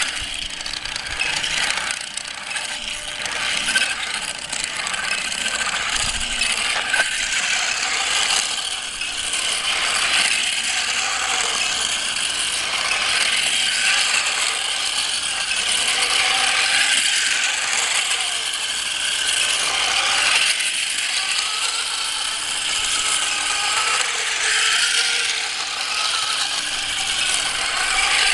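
Two-wheeled self-balancing robot's brushless motors and wheels running on asphalt: a continuous gritty mechanical whirr with a whine whose pitch wanders up and down as the wheels speed up and slow down to keep balance.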